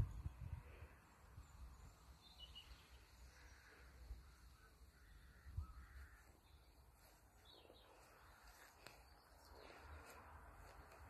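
Near silence: faint outdoor ambience with distant birds calling now and then, and a couple of low bumps from the phone being handled, one at the start and one about halfway through.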